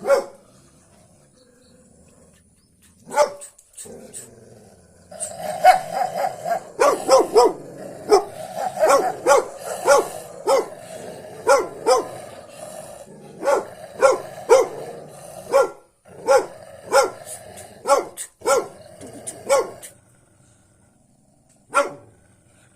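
A dog barking: one bark about three seconds in, then a long run of short barks, about one or two a second, which stops shortly before the end, with a single bark near the end.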